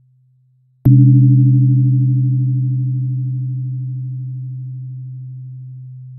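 A 128 Hz therapy tuning fork struck about a second in, with a sharp attack and then a steady low hum that slowly fades. Fainter higher overtones die away near the end. Before the strike, the previous ring is fading out.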